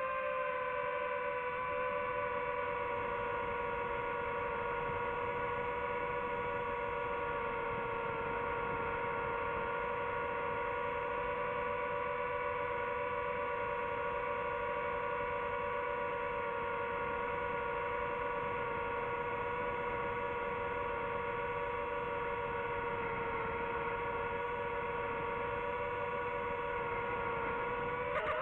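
DJI FPV drone's motors and propellers whining at a steady pitch as it flies, the pitch sagging slightly in the first couple of seconds and rising sharply right at the end with a throttle change.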